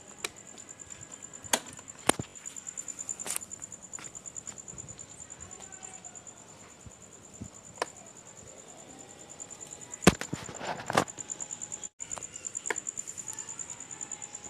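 Crickets chirping in a steady, fast-pulsing high trill, with a series of sharp clicks and knocks from handling, the loudest cluster about ten to eleven seconds in.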